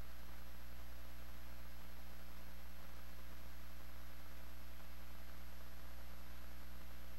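Steady electrical hum with even hiss and a faint high whine, unchanging throughout: the background noise of a blank video-tape transfer with no programme sound.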